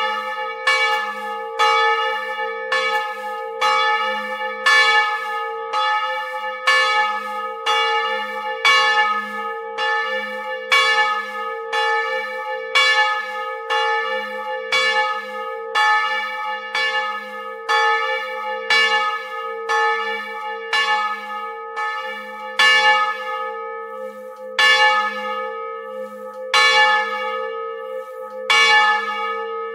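Bronze church bell swinging under a motor-driven chain wheel, its clapper striking about once a second, each stroke ringing on into the next.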